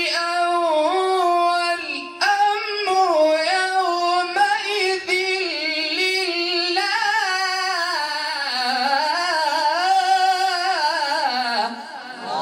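A Quran reciter's voice drawing out one long, ornamented melodic phrase in a high register, the pitch winding up and down. There is a brief catch about two seconds in, and the voice stops shortly before the end.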